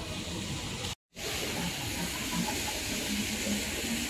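Steady hiss of rushing water; the sound cuts out completely for a split second about a second in, then carries on.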